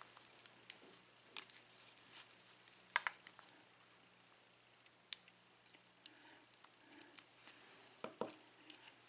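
Scattered small metallic clicks and taps as the top pins and springs of a Yale pin-tumbler mortise cylinder are worked out of the housing's pin chambers.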